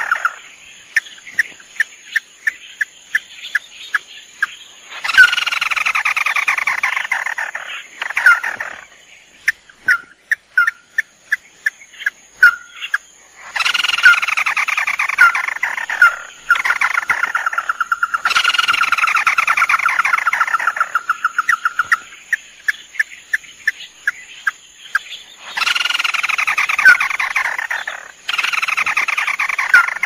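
Tikusan mata merah crakes, male and female, calling as a bird-trapping lure: runs of short sharp call notes, several a second, broken four or five times by loud two-to-three-second bouts of rapid, falling trilled calls.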